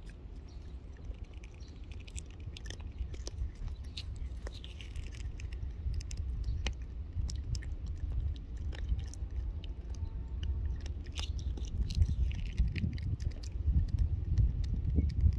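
Tortoiseshell cat licking and lapping a lickable paste treat from a squeezed tube, making many quick, wet tongue clicks. A low rumble grows louder toward the end.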